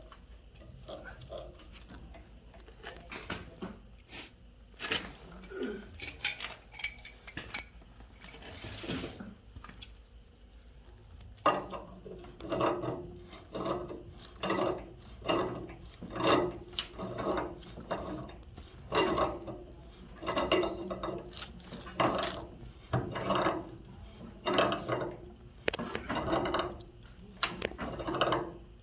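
Scattered metallic clicks and clinks, then from about halfway through a steady run of ratcheting strokes, about one and a half a second, as a wrench tightens a plumbing fitting on a water heater.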